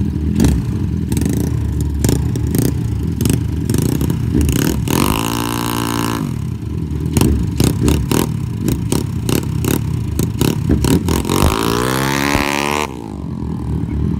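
Motorcycle engines running at a drag-race start with a lumpy, crackling exhaust beat. About five seconds in one engine is revved hard once, climbing and falling back. Near the end an engine revs up in a long rising climb as a bike pulls away, then the sound drops off abruptly.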